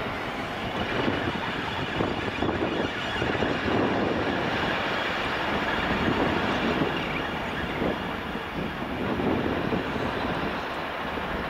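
Diesel locomotive-hauled passenger train running slowly over the station approach pointwork, a steady, even noise of engine and wheels on rail.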